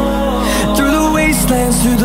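Background music: an electronic pop track, with a gliding melody over a steady sustained bass.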